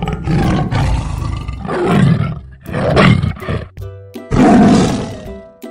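Tiger roaring, about four rough roars in a row of roughly a second each, over light background music.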